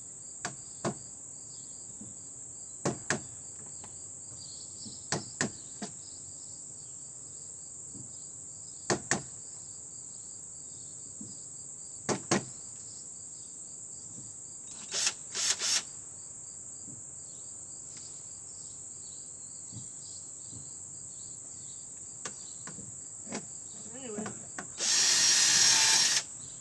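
Crickets chirping steadily. Scattered sharp clicks and knocks, often in pairs, come every few seconds. About twenty-five seconds in, a power drill runs briefly for about a second and a half.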